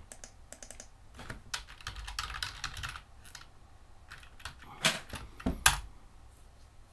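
Typing on a computer keyboard: a quick run of keystrokes, then two louder clacks about five seconds in.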